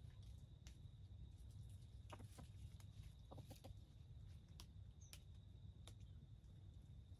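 Faint soft clucking from foraging red junglefowl: a pair of short clucks about two seconds in and a quick run of three about a second later, with light clicks of scratching and pecking in dry leaves.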